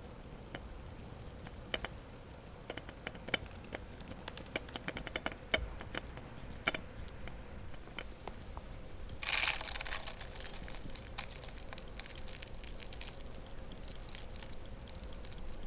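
Wood fire crackling in a Savotta Big Bad Stove wood stove, with scattered sharp pops. About nine seconds in comes a brief hiss lasting about a second.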